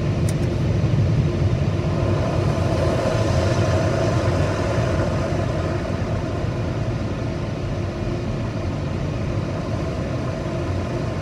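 Steady low rumble of a car heard from inside its cabin as it rolls slowly forward, easing off a little about halfway through.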